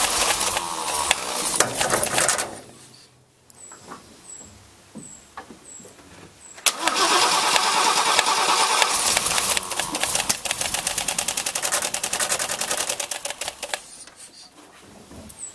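MGC straight-six engine being turned over and starting in two spells: a first spell that dies away after about two and a half seconds, then a longer one from about seven seconds in that pulses unevenly and stops a second or so before the end. It runs badly because the contact-breaker points gaps have been deliberately misadjusted.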